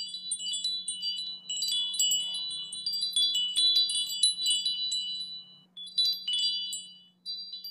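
Chimes ringing: many short, high tones overlapping at random, pausing briefly twice near the end, over a faint steady low hum.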